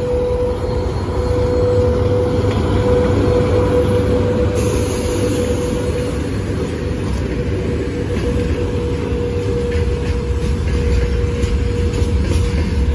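VL80S two-section AC electric locomotive passing close by at the head of a freight train: a steady rumble of wheels on rail with a constant whine over it, then the freight wagons rolling past near the end.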